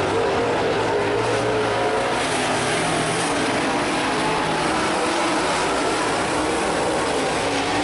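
Several super late model dirt-track race cars running at speed together, their V8 engines overlapping in a steady, loud mix of engine notes.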